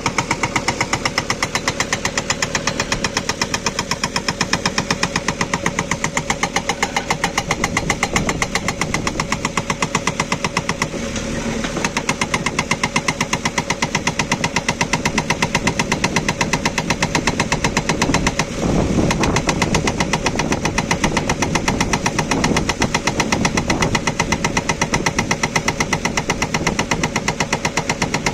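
Hydraulic breaker on a JCB 3DX backhoe loader hammering hard stone, a fast, even run of blows over the running diesel engine.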